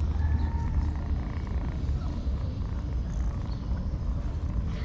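A stray kitten mewing faintly in the first second, over a steady low rumble.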